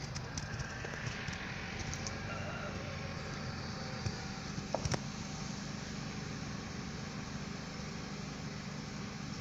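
Steady low outdoor rumble with a faint steady hum, broken by a few short clicks near the start and again about five seconds in.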